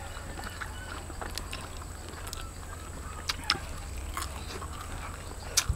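A person chewing a flaky fried tuna pie, with a few short crisp clicks of mouth and crust sounds scattered through the second half over a faint steady hum.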